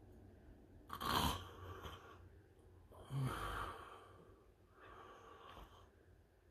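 A man snoring in deep sleep: three noisy breaths about two seconds apart, the first two the loudest, the second with a low rattling buzz.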